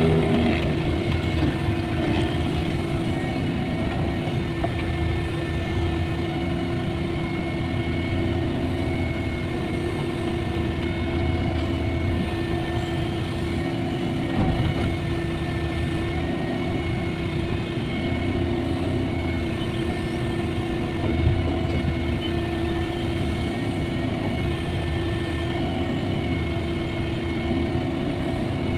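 Caterpillar 305.5E mini excavator's diesel engine running steadily while it works, with a constant tone over the rumble and a few brief knocks: near the start, about halfway through and about two-thirds of the way in.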